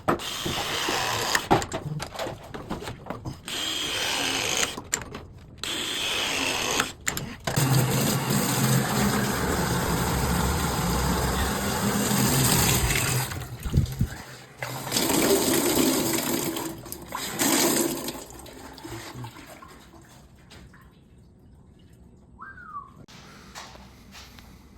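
Water running hard from a tap into a sink, in several stretches broken by abrupt cuts, then dying away near the end.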